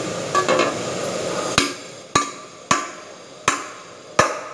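Five sharp knocks on a hard object, one about every two-thirds of a second.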